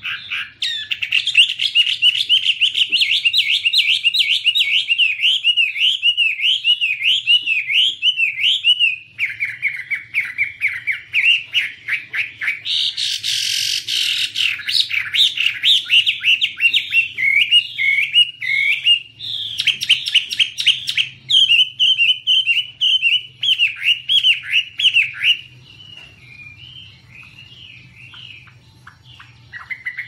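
Chinese hwamei (Garrulax canorus) singing a long, loud song of rapid, varied warbled notes, with a brief hissing, rasping stretch about halfway through. The song falls away to a few soft notes for the last few seconds.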